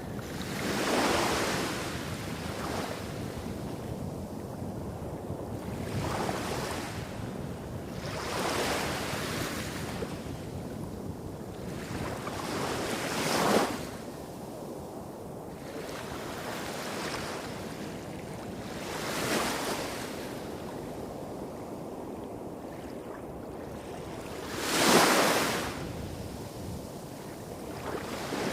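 Small waves breaking and washing up a beach, a surge every few seconds that swells and falls away. The strongest come about halfway through and near the end. Underneath runs a steady low rumble of surf hitting rocks further off.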